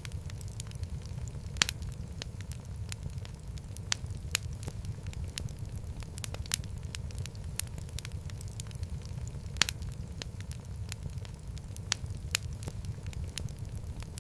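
Fireplace fire crackling, with a steady low rumble of burning and frequent sharp, irregular pops of burning wood, two of them louder, about one and a half seconds in and near ten seconds.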